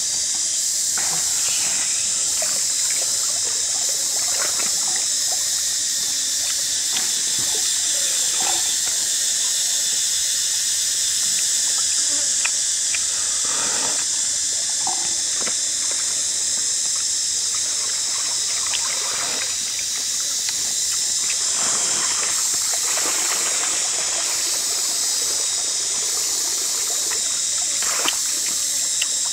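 Steady trickle and hiss of a shallow stream, with scattered close eating noises, slurping and chewing from a bowl, most often around the middle and near the end.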